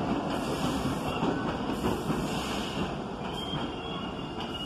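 New York City subway train of R68-family cars running along the tracks: a steady rumble of wheels on rail that slowly fades.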